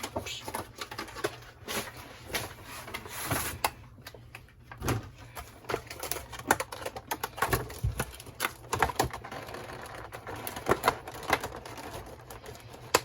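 Cardboard and plastic packaging being opened and handled by hand: an irregular run of clicks, crinkles and rustles.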